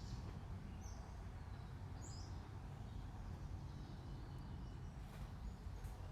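A few short, high bird chirps over a steady low background rumble of outdoor noise.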